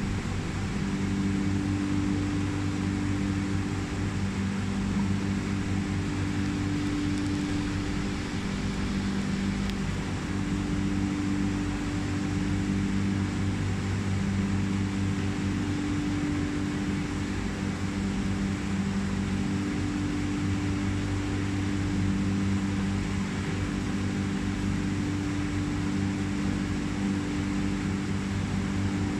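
Steady machine hum: a low drone that slowly swells and fades a little, over a steady hiss.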